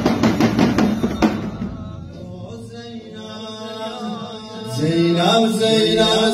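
Male reciter chanting a Shia lament (noha) into a microphone, holding long melodic lines that grow louder about five seconds in. A steady rhythm of beats goes with the chant at first and stops about a second in.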